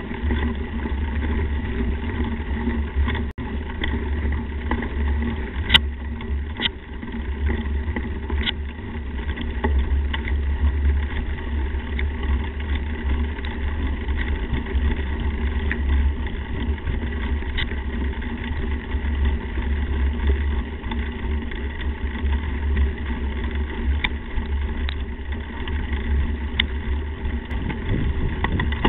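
Slingshot Ripper mountain bike rolling over a dirt track, heard through a camera mounted on the bike's front end. There is a steady deep rumble of tyre and wind noise, with sharp clicks and rattles from the bike now and then.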